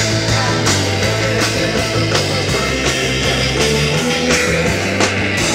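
Live band playing loud rock music, with a drum kit beating steadily under electric guitar.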